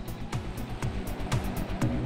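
Background music with a steady beat of about two drum hits a second, with lighter hits between them over held tones.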